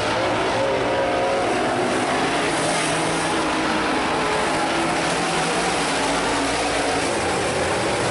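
A field of super late model dirt-track race cars running at racing speed, their V8 engines blending into a steady loud noise, with several engine pitches wavering up and down as the cars go around.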